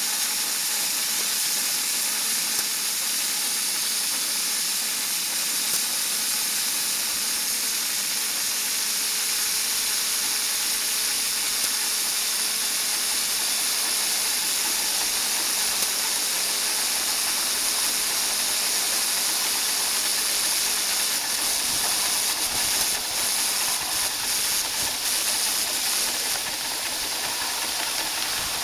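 Live steam miniature locomotive hissing steadily with escaping steam as it rolls along, with a few light clicks in the last several seconds.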